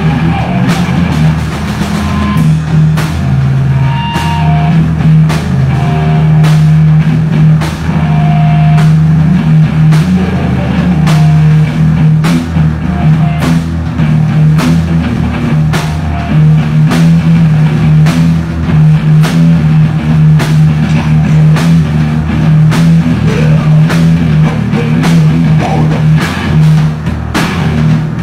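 Live hard rock band playing loud: electric guitars holding a low riff over a drum kit with regular drum and cymbal hits.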